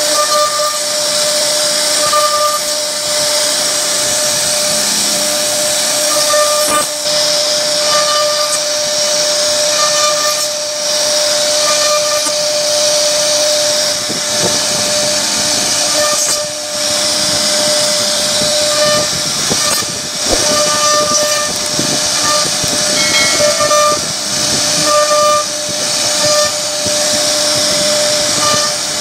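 CNC router spindle running at high speed while its bit carves a wooden door panel: a steady high whine over the hiss of the bit cutting wood.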